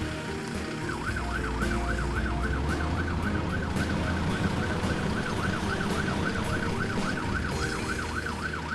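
Emergency-vehicle siren in a fast yelp, rising and falling about three or four times a second, starting about a second in, over background music.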